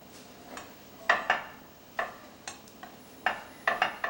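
Metal fork poking holes in slices of pound cake in a glass baking dish, its tines clicking against the glass in irregular sharp taps, about two or three a second.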